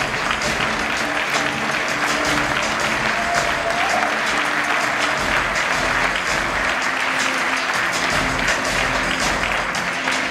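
Audience applauding over guitar music.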